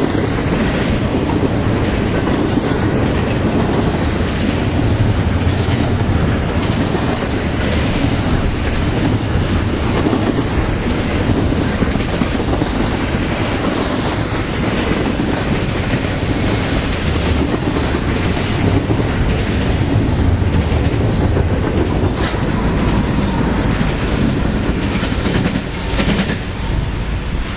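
Loud, steady rumble of double-stack container cars of a BNSF intermodal freight train rolling past, with wheels clacking over the rail joints throughout. Near the end, the train's rear diesel locomotives go by.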